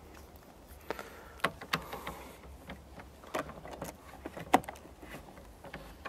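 A laptop power adapter and its cable being unwound and handled: soft rustling with a handful of light plastic clicks and knocks, the sharpest a little past the middle.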